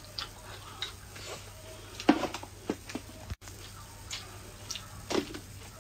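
A person eating corn-grit rice from a bowl with chopsticks: a scatter of short clicks and mouth sounds. The sound drops out completely for a moment a little past halfway.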